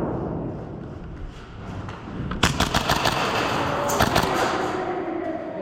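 Airsoft guns firing rapid bursts of shots, one cluster about two and a half seconds in and a shorter one about four seconds in.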